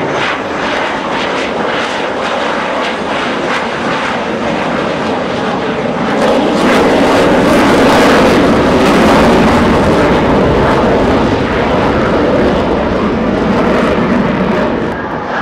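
Jet engine noise from a pair of Blue Angels F/A-18 Hornets making a low pass, a steady roar that grows louder about six seconds in as the jets come closer.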